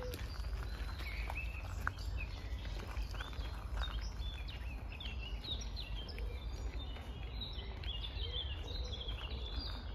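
Several songbirds singing, with many short chirps and trills that grow busier a few seconds in, over a steady low rumble.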